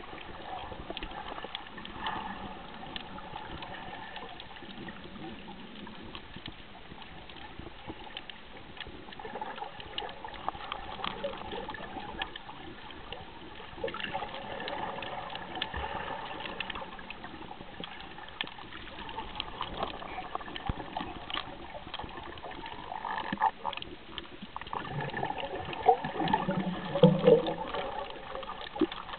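Water sloshing and splashing around a snorkeller's camera, with scattered clicks and a louder stretch near the end.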